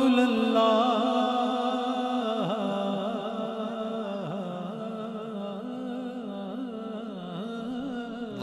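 A man singing an unaccompanied naat into a microphone, drawing out one long note. The note is steady at first, wavers in pitch from about two seconds in, and fades slowly.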